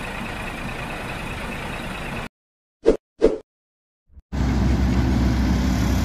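A steady hiss stops short, followed by about two seconds of silence broken by two brief blips. About four seconds in, the engine of a Volvo pneumatic-tyre road roller starts up and runs steadily with a low hum.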